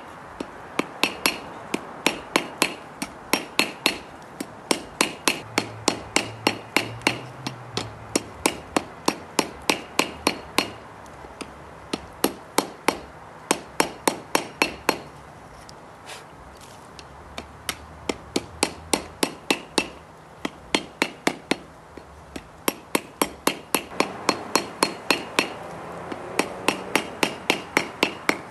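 Hand hammer striking a red-hot bar of forge-welded wrought iron and 1084 high-carbon steel on an anvil, forging a knife: quick, steady blows about three a second, each with a short metallic ring. The hammering stops briefly a few times, once for about a second near the middle.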